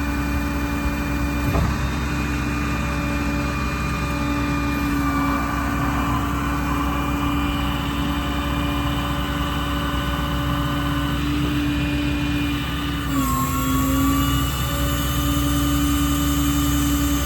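Ram 5500's 6.7 Cummins diesel engine running steadily, with a constant whine over the drone. About 13 seconds in the pitch dips briefly and a high hiss joins in.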